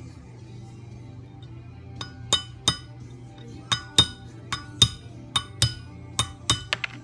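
Hammer striking a punch on a small-engine crankshaft, driving its key out: about a dozen sharp, ringing metal taps, irregularly spaced, beginning about two seconds in.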